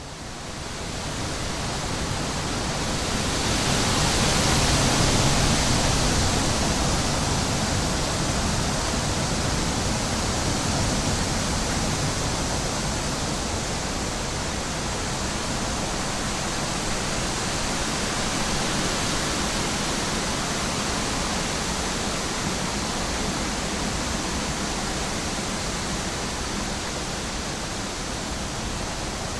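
Wind blowing through trees: a steady rushing that builds over the first few seconds to its strongest about five seconds in, then holds steady.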